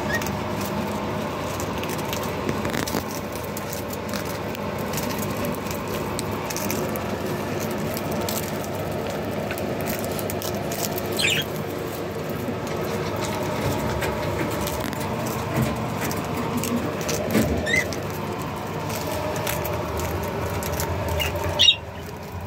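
A flock of budgerigars chattering steadily, with a few short, sharp rising chirps standing out, the loudest near the end.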